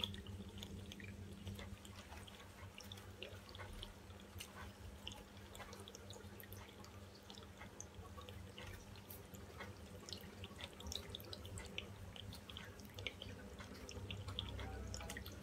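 Faint, irregular drips and small ticks, typical of wet acrylic pouring paint dripping off the canvas edges onto the table, over a steady low hum.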